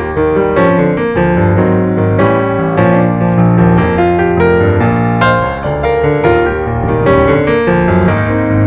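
Background piano music: a steady run of melodic notes over a held bass.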